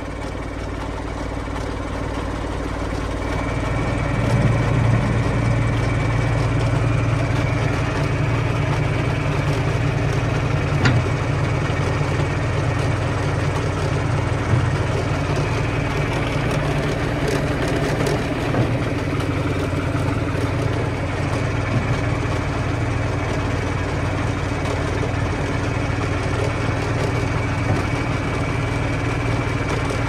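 Tractor engine running, its speed and loudness rising over the first few seconds and then holding steady as it drives the hydraulics that tip the potato harvester's bunker up.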